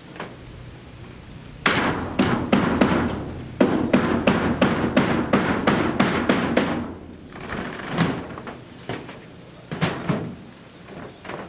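Hammer blows during roof work: a quick run of strikes, about three or four a second for some five seconds, then a few single blows spaced out.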